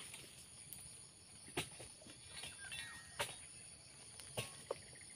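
Sharp knocks of a harvesting chisel (dodos) striking the frond bases and fruit-bunch stalks of a young oil palm, about four blows over a second apart. A steady high-pitched whine runs behind them.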